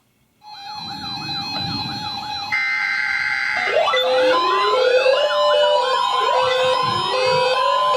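Layered electronic siren tones: a fast yelp sweeping up and down about three times a second, joined by a steady high tone, then from about four seconds in by several slower overlapping wails and broken steady tones.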